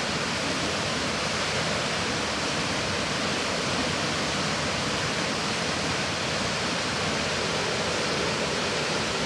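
Waterfall on the Genesee River rushing steadily: an even, unchanging hiss of falling water at a constant level.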